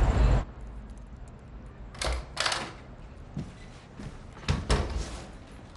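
Street noise with a passing car cuts off just after the start. An apartment's front door is then worked: a run of metallic clicks and knocks about two seconds in, as of a key in the lock and the door opening, then more knocks and clicks a couple of seconds later as it is shut.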